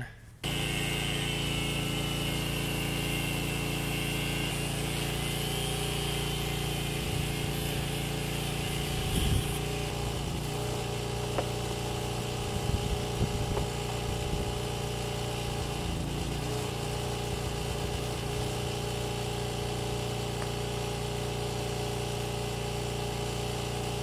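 Small engine of a portable generator running steadily at a constant speed, powering the cutting tool for the steel pipe, with a few light knocks.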